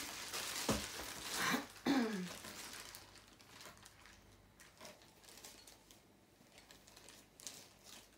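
Clear plastic packaging crinkling and rustling as a belt is handled and pulled out of its bag, loudest in the first three seconds. After that come faint rustles and a few small clicks.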